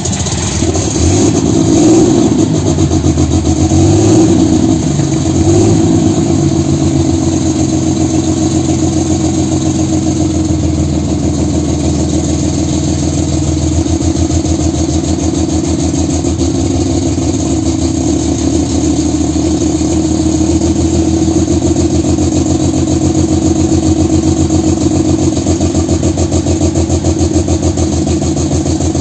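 Pulling tractor's engine running loud through twin open exhaust stacks, blipped up a few times in the first six seconds, then idling with a steady rhythmic beat.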